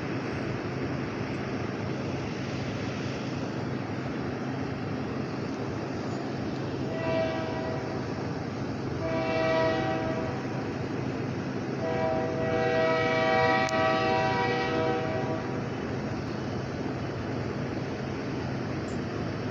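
Diesel locomotives running light (no cars attached) pass with a steady engine rumble. The air horn sounds three times, several tones at once: a short blast about seven seconds in, a longer one around nine to ten seconds, and the longest from about twelve to fifteen seconds.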